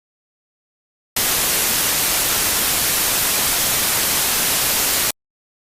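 A loud burst of static hiss, like a broadcast signal breaking up. It starts abruptly about a second in, holds steady and cuts off abruptly about four seconds later.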